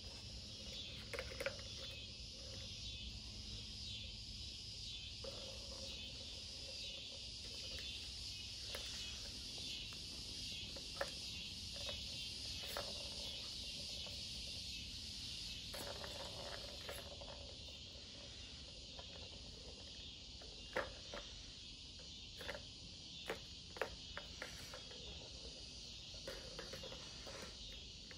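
Steady high-pitched insect chorus with occasional light clicks and taps.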